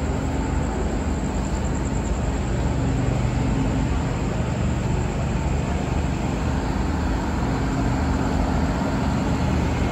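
Stationary diesel train idling: a steady low hum with an even engine drone underneath.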